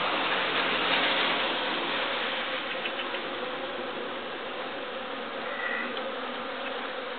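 Honeybee colony buzzing over an open hive, bees stirred up by being worked without smoke; a steady hum that fades a little.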